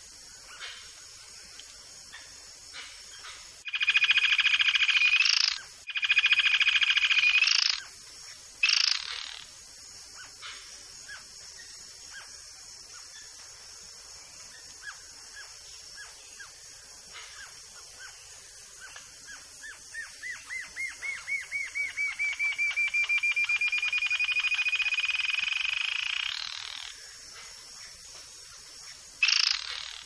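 Yellow-billed jacamar (Galbula albirostris) singing. Sharp high calls sweep downward, and two loud, even trills come about four and six seconds in. Later a run of notes speeds up and rises in pitch into a fast trill that lasts several seconds.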